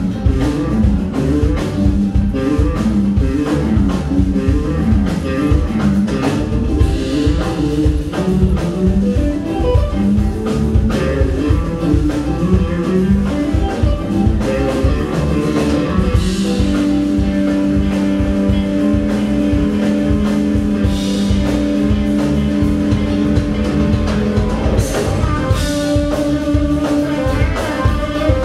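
A live band of electric guitars and a drum kit playing an instrumental passage. Over a steady drum beat the guitars play quick runs of notes, then hold long notes for several seconds past the middle, then pick up again near the end.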